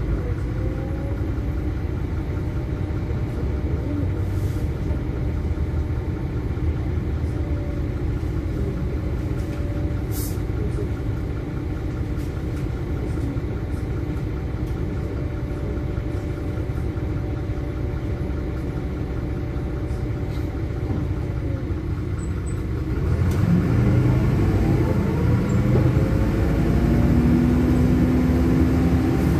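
LiAZ-5292.21 city bus's diesel engine idling steadily, heard from inside the passenger cabin. About 23 seconds in it gets louder and its note rises as the bus pulls away.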